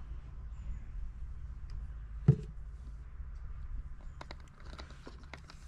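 Small clicks and knocks from handling a plastic oil bottle and funnel at a chainsaw's chain-oil tank, with one sharper knock about two seconds in and a run of light clicks near the end, over a steady low rumble.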